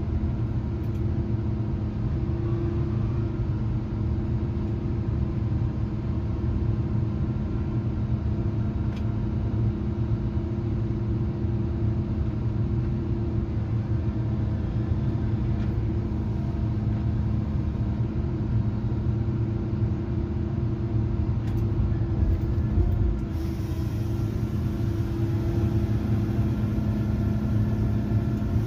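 Tigercat 822 feller buncher's diesel engine and hydraulics running in a steady drone, heard from inside the operator's cab.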